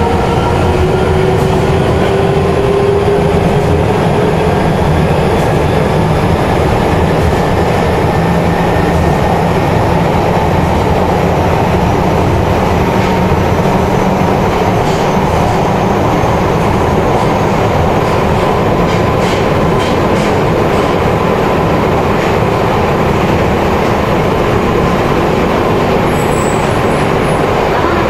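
Nagoya Municipal Subway N1000 series electric train with IGBT-VVVF inverter control, heard from inside the car. The inverter's rising tones from acceleration fade out within the first several seconds, leaving steady running noise of wheels, rails and traction motors with a faint constant whine. A few faint high squeaks come near the end.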